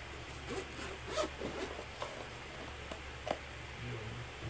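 Zipper of a black padded camera carrying case being pulled open in a run of short rasps over the first two seconds. Two sharp clicks follow as the case is handled and opened.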